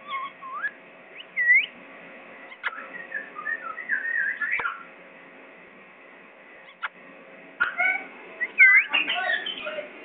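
Pet parakeet whistling and chattering in short bursts. A loud swooping whistle comes about one and a half seconds in, then a run of warbling chatter, a quiet gap, and more whistles and chatter near the end, with a few sharp clicks between.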